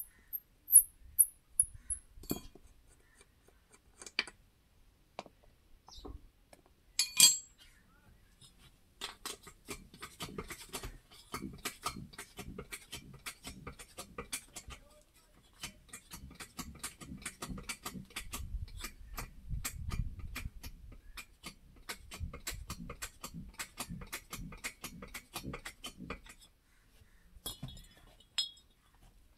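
Hand tools clinking on the steel parts of a tractor's front wheel hub as it is taken apart. A few sharp, ringing clinks come first, then a long run of quick metallic ticks, several a second, and a few more clinks near the end.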